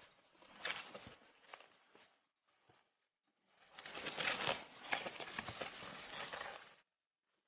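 Crinkling of plastic bags and styrofoam takeaway boxes being handled and pressed shut, in two stretches with a gap between them, each stopping abruptly.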